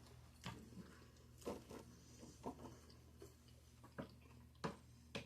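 Quiet chewing of a sushi roll, with a few faint, short wet mouth clicks and smacks about once a second over a low steady hum.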